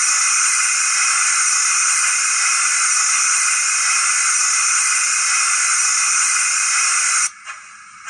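Model steam locomotive sound decoder (Zimo, in a Bachmann GWR prairie tank) playing a loud, steady steam hiss of the cylinder drain cocks blowing off, which cuts off suddenly about seven seconds in.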